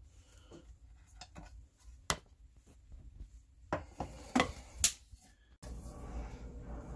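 Handling noise: scattered clicks and knocks, the loudest about two seconds in and again near five seconds, as the recording phone is picked up and moved over the table. After an abrupt cut past five and a half seconds, a steadier background with small clicks of hands handling a small metal case.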